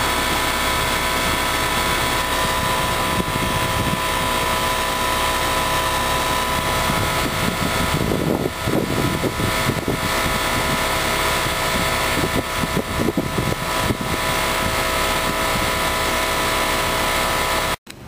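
Coleman (UPG) heat pump outdoor unit running in heat mode: a steady hum of the compressor and fan with several constant tones.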